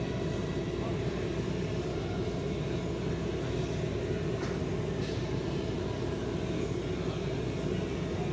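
Enclosed diesel air heater running steadily after its startup cycle, its fan and burner going with an even hum.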